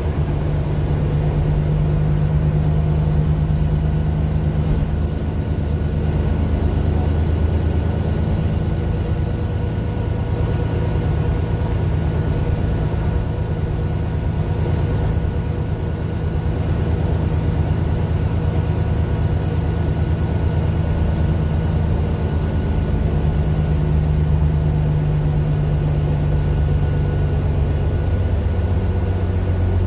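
Mercedes-Benz Citaro LE city bus's Daimler OM 457 hLA six-cylinder diesel running steadily under way, a low engine drone with a thin steady whine above it, recorded on a phone. The engine note steps up about two seconds before the end.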